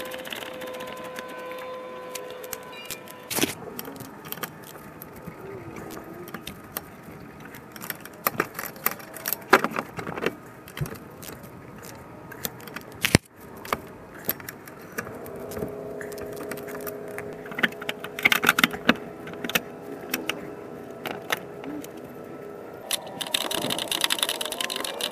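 Hand tools and metal parts clinking and rattling in irregular bursts during work on a car's rear wheel hub and bearing, with a sharp knock about thirteen seconds in.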